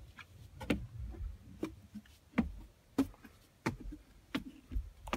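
Irregular sharp clicks and knocks, about one a second, over a low rumble: hands and a glove working among the insulation inside a wall cavity.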